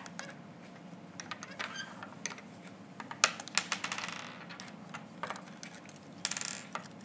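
Plastic molecular model kit pieces clicking and rattling as they are handled and pressed together, a scatter of sharp clicks with the loudest about three seconds in.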